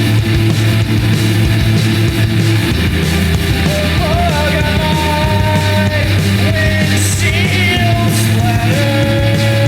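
Loud, dense rock music with guitars. A held, wavering melody line comes in about four seconds in.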